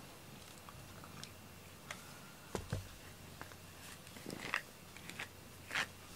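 Soft scattered rustles and light taps of a cat being groomed with a brush and shifting its paws on a cardboard scratcher, with a couple of sharper taps and a low thump about halfway through.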